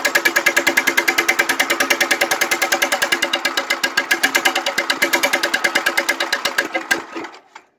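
1959 Gravely Model L's single-cylinder engine running with an even, rapid exhaust beat, then shut off about seven seconds in, dying away through a few last beats.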